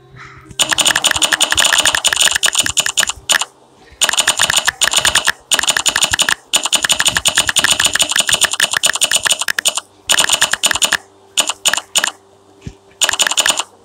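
Touchscreen keyboard key-press clicks as a message is typed on a phone. They come in rapid runs separated by short pauses, and thin out to a few single clicks near the end.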